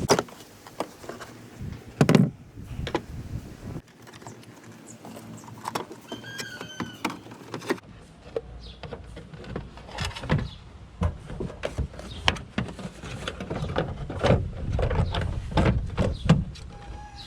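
Clicks, knocks and clatter of hands working on a car's tail light assembly, in several short spliced-together segments. A brief high squeak comes about six seconds in.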